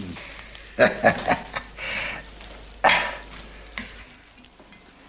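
A wooden spoon stirring and scooping in a pan of stewed mushrooms. There are a few quick knocks against the pan about a second in, then wet scraping and slopping sounds.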